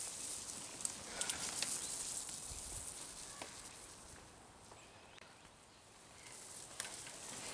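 Mountain bikes ridden past on a muddy, leaf-strewn trail: hissing tyres on wet dirt with a few sharp clicks from the bikes, fading as the riders pull away and growing again as the next rider comes close near the end.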